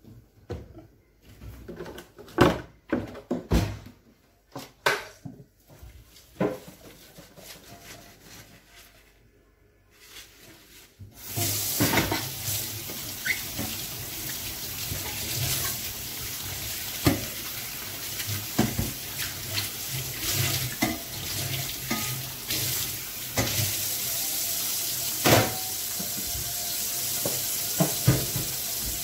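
Kitchen work: separate clatters and knocks of pots and utensils, then about eleven seconds in a steady hiss starts, like a running tap or food frying in a pan, with more knocks of utensils over it.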